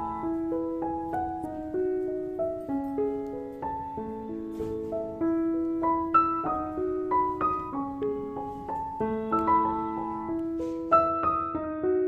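Background music: a gentle piano melody of single notes, played at an even pace with soft chords underneath.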